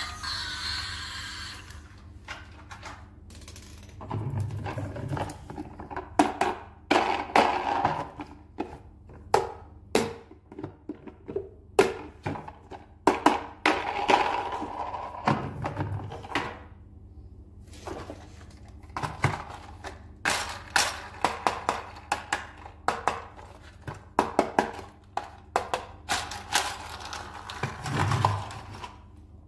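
Hard plastic toy vehicles being handled: irregular clicks and knocks as they are picked up, turned over, set down and bumped against each other on a table, with a few duller thumps.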